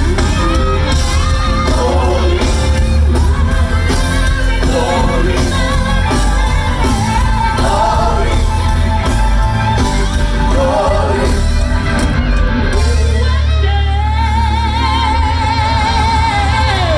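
Live band and singers performing an R&B/gospel-style number over a steady heavy bass, with voices shouting out; in the second half a lead voice holds long notes with wide vibrato.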